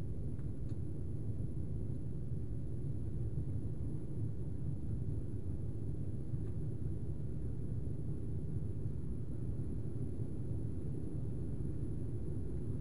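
Steady low rumble inside the cabin of an Embraer airliner climbing after takeoff: jet engine and airflow noise heard from a window seat.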